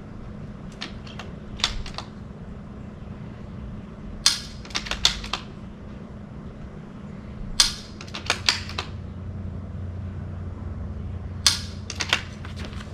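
.22 rimfire rifle fired three times, about three and a half seconds apart. Each shot is followed by a quick run of clicks as the bolt is worked, and a few fainter clicks come about a second or two in.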